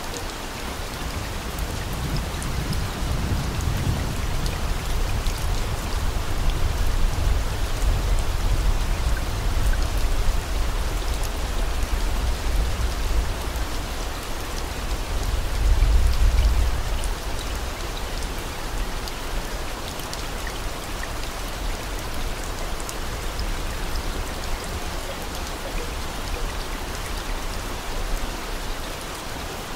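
Steady, even rain falling, with a low rumble swelling up twice, about three seconds in and again around sixteen seconds in.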